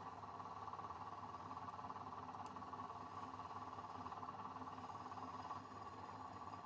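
Milling machine running steadily, its end mill cutting into a metal workpiece.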